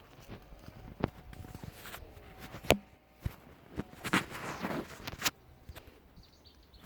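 Footsteps and scuffing with several sharp knocks, the loudest about two and a half seconds in, and a run of scuffs a little after the middle.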